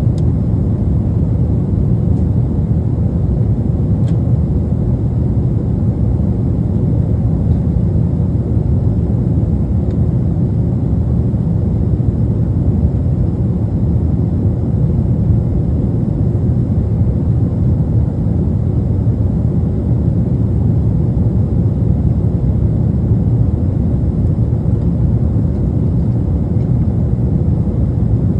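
Steady low rumble of a jet airliner's engines heard inside the passenger cabin.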